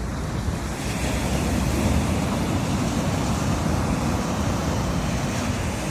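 Ocean surf washing ashore in a steady rush that swells about a second in, with wind buffeting the microphone in low rumbles.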